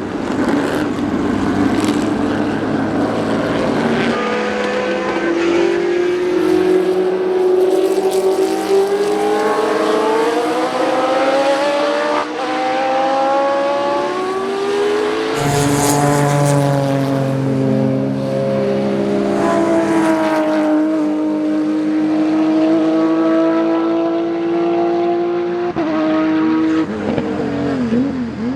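Historic racing car engine accelerating hard through the gears, its pitch climbing steadily for several seconds at a time and dropping at each upshift: about four seconds in, twice in the middle, and once near the end.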